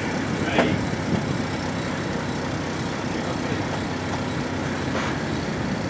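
Class 73 electro-diesel locomotive running on its diesel engine, moving slowly, with a steady engine and running noise heard inside the cab.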